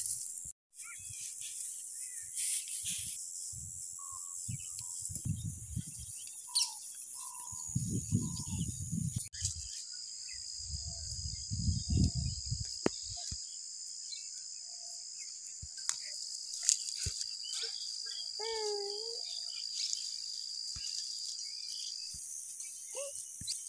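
Outdoor field ambience: insects chirring steadily at a high pitch, with scattered short bird chirps. A few bursts of low rustling come about a quarter and half way through.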